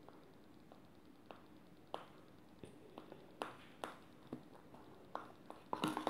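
Metal fork clinking and scraping against a small bowl while mashing banana: scattered light taps, coming faster near the end.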